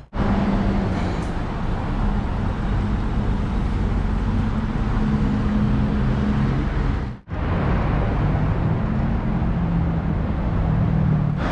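Steady city road traffic: a continuous wash of car engines and tyres. It cuts out abruptly for a moment about seven seconds in, then carries on.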